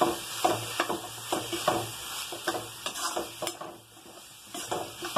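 Steel spoon stirring taro root (arbi) pieces through thick spice masala in a kadai, scraping and knocking against the pan about two or three times a second, over the sizzle of the oil. The strokes ease off briefly about four seconds in.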